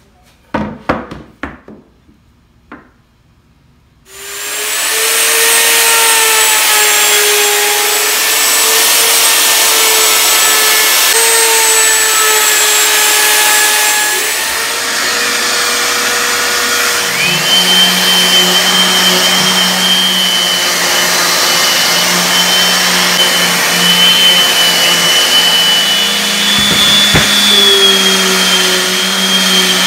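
A few knocks as a cutting board is set into a wooden router sled, then a plunge router starts about four seconds in and runs steadily as it surfaces the board. In the second half the steady sound changes to a random orbital sander working the board.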